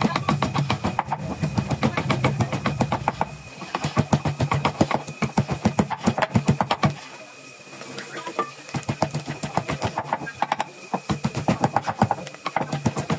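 Runs of rapid, even tapping strokes, several a second, with a short pause about halfway through.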